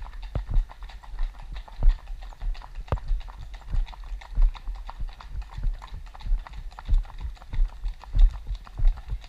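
Horses' hooves clip-clopping at a walk on a tarmac road: the rider's own horse and others in the group just ahead, a steady run of sharp hoof strikes.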